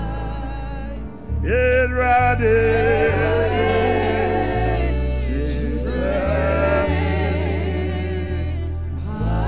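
A man singing a gospel worship song into a microphone, his voice held and wavering on long notes, over backing music of sustained bass notes and chords. The voice comes in strongly after a short pause about a second in.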